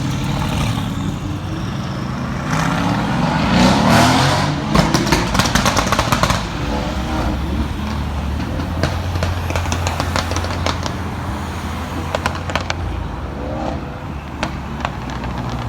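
Mercedes-AMG GT S twin-turbo V8 on a Stage 2 tune revving up hard, then a rapid string of exhaust pops and crackles on the overrun, lasting about a second and a half. After that it settles into a steady low engine rumble, with a few scattered pops near the middle and end.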